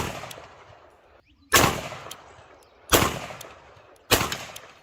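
Orbea .38 Special revolver firing three shots about a second and a half apart, each a sharp report that rings out and fades. The tail of an earlier shot is still dying away at the start.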